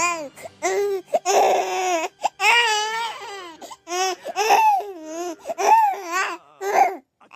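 A baby's voice in a string of short, high-pitched, wavering cries and squeals, broken by brief gaps.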